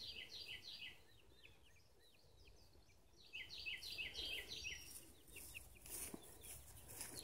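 A bird chirping in two quick runs of repeated high notes, about six a second. The first run ends about a second in, and the second starts a little past three seconds in.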